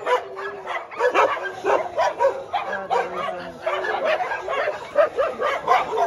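A crowd of excited dogs barking and yelping all at once, with many short calls overlapping without a break.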